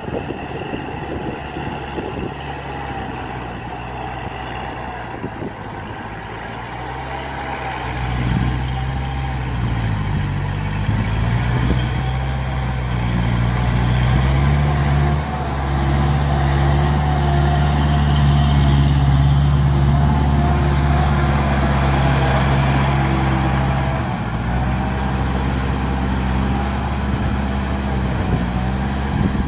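Kubota tractor's diesel engine running steadily, growing louder about eight seconds in, with brief dips in pitch around ten seconds and again near twenty-four seconds.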